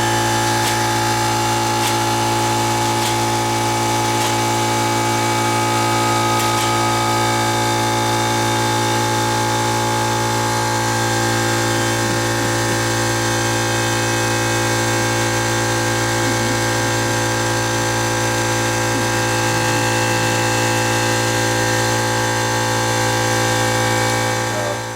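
Electric air compressor feeding a pneumatic sewing machine, running with a steady hum, refilling its tank, until it shuts off abruptly near the end.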